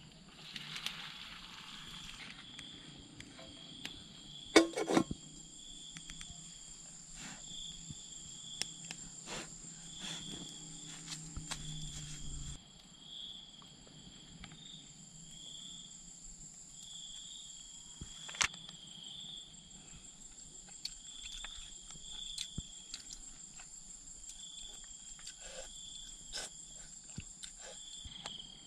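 Insects chirping in a steady repeating pattern over a continuous high whine. In the first couple of seconds broth is poured from a pot into a bowl, a loud clatter of dishes comes about five seconds in, and light clicks of chopsticks on plastic containers follow now and then.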